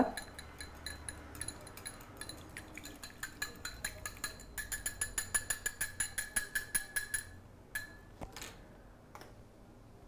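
Wire whisk beating an egg in a small ceramic bowl: rapid clinks of the wires against the bowl, which settle into a quick, even rhythm and stop about seven seconds in. A couple of light knocks follow.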